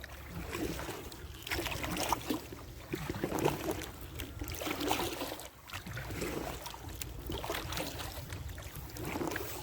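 Kayak paddle strokes splashing and pulling through lake water beside an inflatable kayak, a stroke every second or two, over a low wind rumble on the microphone.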